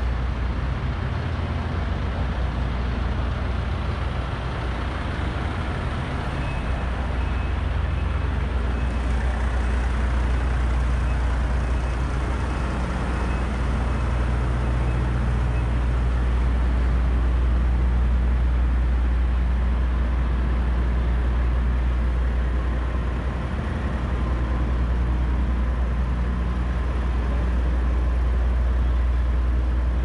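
Diesel engines of heavy construction machinery running with a steady low rumble. A faint repeated high beep sounds for a couple of seconds about seven seconds in.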